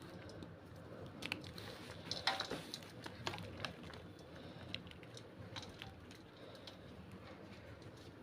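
A slab of gym chalk topped with cornstarch being crushed. It gives scattered crunches and crackles, a quick cluster around two seconds in, then fewer and fainter ones toward the end.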